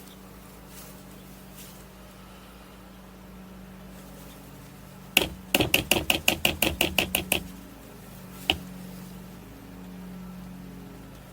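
A quick run of about a dozen sharp knocks, some six a second, then a single knock about a second later, over a steady low hum.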